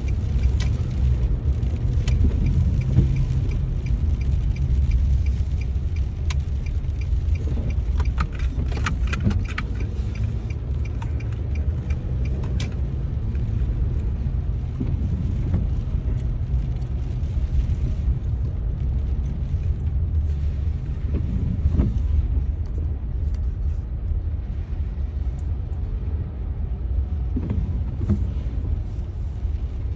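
Low, steady rumble of a car heard from inside the cabin, with scattered light taps, clustered about a third of the way in.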